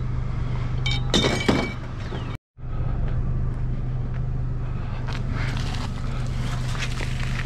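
A vehicle engine running steadily with a low hum, and a few sharp metallic clinks of scrap being handled about a second in. The sound drops out completely for a moment a little over two seconds in, then the engine noise goes on.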